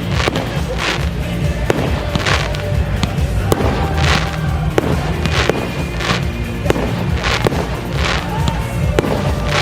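Fireworks shells bursting about once a second, sharp bangs, some followed by a crackling hiss. They play over loud music with a heavy beat.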